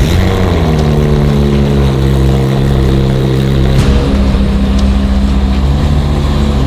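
Car engine running at steady revs.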